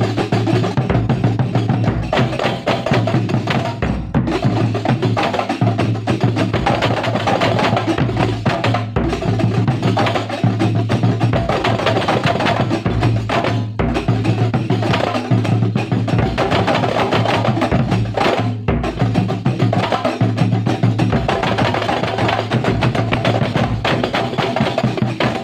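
Kuntulan ensemble playing percussion music: frame drums and other drums beaten in a fast, dense, unbroken rhythm.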